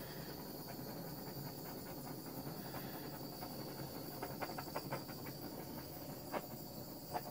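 Handheld gas torch hissing steadily as its flame is passed over freshly poured epoxy resin to clear surface bubbles. A quick run of small clicks about four seconds in, and two single clicks near the end.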